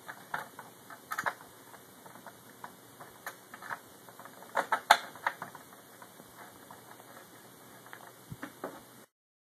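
Irregular small clicks and taps of a screwdriver and screws against an Xbox 360 case as the silver screws are put in, with a louder cluster of knocks about halfway through. The sound cuts off abruptly just before the end.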